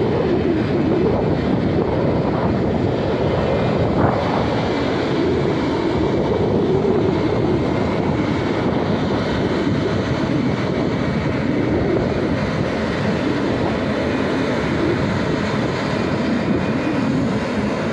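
Airbus A220-300's Pratt & Whitney PW1500G geared turbofans running at taxi power while the jet turns on the apron: a steady, loud jet whoosh and rumble that wavers slightly in pitch as the aircraft swings around. A brief knock about four seconds in.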